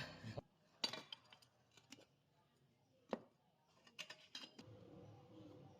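Near silence broken by a handful of short, light clicks and taps, irregularly spaced, with the sharpest about a second in and another about three seconds in.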